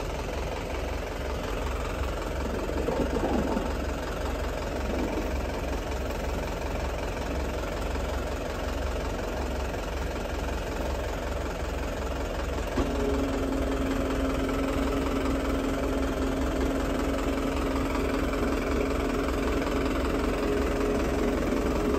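Diesel farm tractor idling steadily with a low knocking rumble, while potatoes tumble out of the tipping trolley. About thirteen seconds in, a steady humming tone joins the engine and holds.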